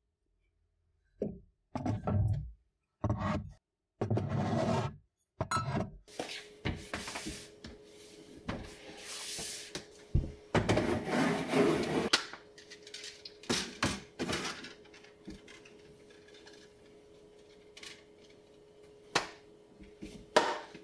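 Mugs and kitchen containers being set back onto cupboard shelves: short clunks and scrapes of items against the shelves. Short separate bursts with silent gaps come first, then scattered single knocks.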